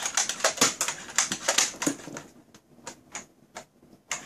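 Nerf Strongarm blaster being primed and fired over and over: a rapid run of hard plastic clicks and clacks from the priming slide and the revolving dart cylinder, thinning out to scattered clicks after about two seconds.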